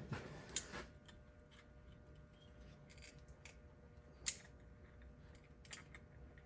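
A few faint, sharp metallic clicks as locking pliers (vise grips) clamp and handle small sheet-metal pieces of a hand-built exhaust pipe, the loudest click about two-thirds of the way through, over a faint steady hum.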